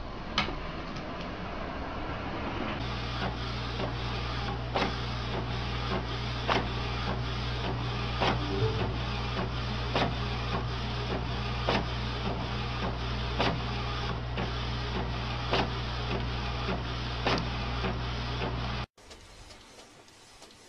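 Desktop printer printing: a steady motor hum with a sharp click about once a second, which cuts off suddenly near the end.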